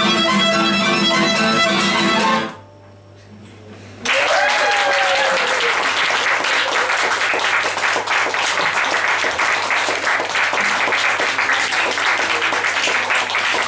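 Violin, clarinet and acoustic guitar trio playing the last notes of a folk tune, which stop about two and a half seconds in. After a short pause an audience applauds for the rest, with a brief call rising out of the clapping as it begins.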